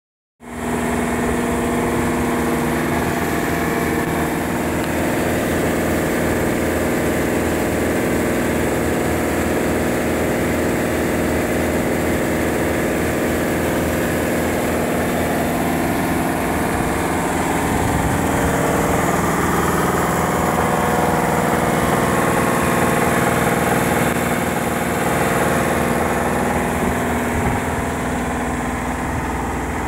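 Mitsubishi Shogun engine idling steadily with a steady hum, while a hydrogen carbon-cleaning machine feeds gas into its air intake through a coiled hose.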